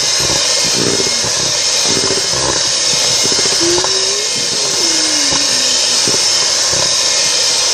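Electric hand mixer running continuously as it whisks cake batter, a loud, steady motor whir.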